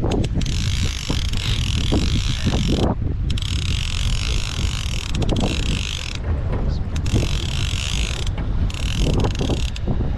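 Wind buffeting the microphone in a steady low rumble, with the hiss of a choppy sea around a drifting boat.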